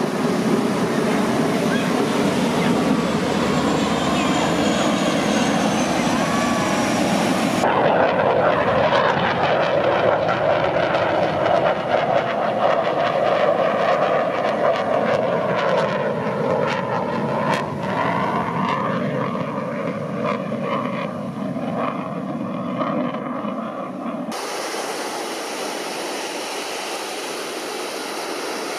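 Airplane engine drone of an aircraft flying over, its pitch slowly bending as it passes. The sound changes abruptly about eight seconds in and again near 24 seconds, as the footage cuts.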